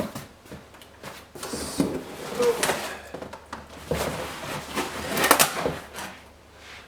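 Unboxing packaging being handled and rummaged through: irregular rustling and scraping with a few light knocks, loudest about five seconds in.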